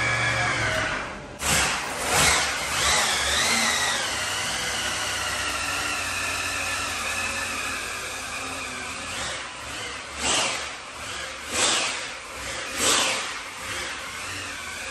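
Supercharged 540-cubic-inch big-block Chevy V8 running on an engine dyno, its blower whine over the engine noise, with a string of short throttle blips: three close together near the start and about five more in the second half.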